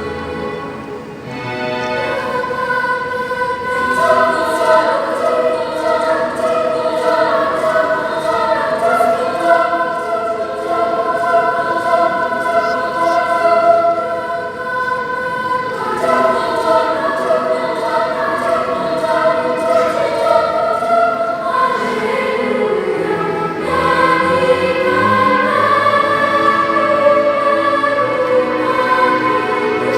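Mixed children's choir singing in several parts, with long held notes. The sound dips briefly about a second in and grows fuller from about four seconds.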